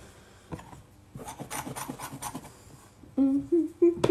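Hands kneading and pressing soft potato gnocchi dough on a floured benchtop: a quick run of soft rubbing, scraping strokes. Near the end a woman hums a few notes.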